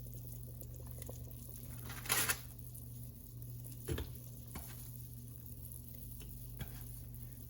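Dumplings of dough being laid into a pot of hot chicken broth: soft wet handling sounds, with one brief rush about two seconds in and a small knock near four seconds, over a steady low hum.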